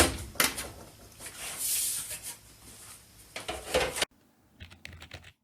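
Plastic back casing of an all-in-one PC being unclipped and lifted off: a sharp snap, then a second click and a stretch of plastic scraping and handling. The sound drops out suddenly about four seconds in.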